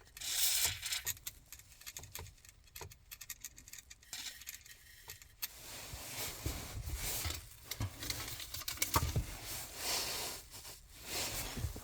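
A short hiss in the first second, then scattered small clicks and taps of hands working at the car's dashboard stereo volume knob, where WD-40 has just been sprayed. From about halfway come longer rubbing and rustling sounds with low handling bumps.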